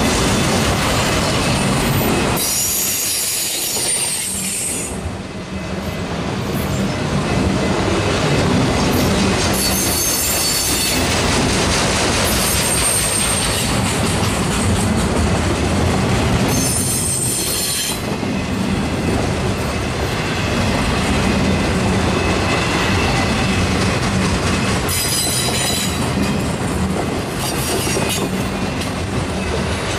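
Autorack freight cars rolling past with a steady wheel-on-rail rumble. High metallic wheel squeal rises four times: about 3, 10, 17 and 26 seconds in.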